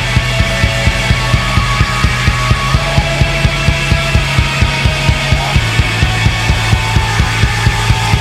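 Rock music with a fast, steady kick-drum beat and sustained bass and guitar.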